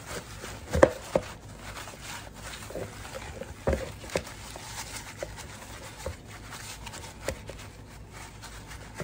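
Paper towel rustling and patting on raw chicken drumsticks in a plastic bowl, with scattered soft taps and knocks, the loudest about a second in.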